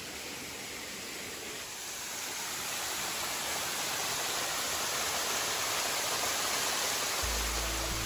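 Small waterfall spilling down a rock face: a steady rushing hiss of falling water that grows a little louder about two seconds in. Background music with low held notes comes in near the end.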